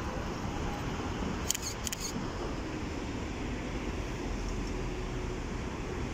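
Three quick sharp clicks of a camera shutter about a second and a half in, over steady outdoor street and wind noise.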